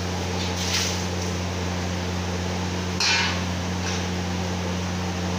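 Steady low hum in the background, with two brief knocks or clatters, one just under a second in and one about three seconds in.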